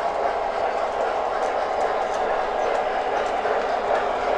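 MTH O scale model trains running on three-rail track, led by a diesel locomotive passing close by: a steady whirring rumble of wheels and motors, with a few faint clicks.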